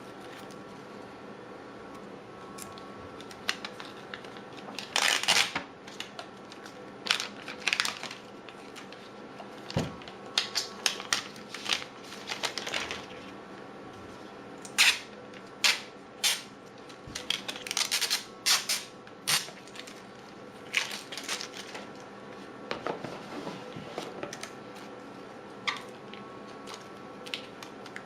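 Apple TV packaging being handled and opened: irregular clicks, taps and crinkling of cardboard and plastic, over a steady faint hum.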